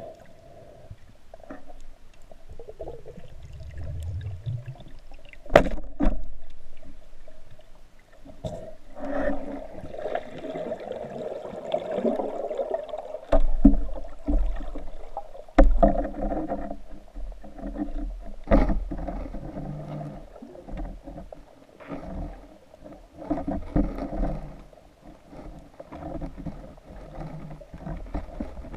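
Water sloshing and gurgling against an underwater camera housing mounted on a speargun, with a few sharp knocks, the loudest about a fifth of the way in and two more past the middle.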